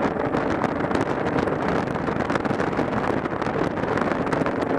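Motorcycle riding at road speed: steady wind rush on the microphone with the engine running underneath.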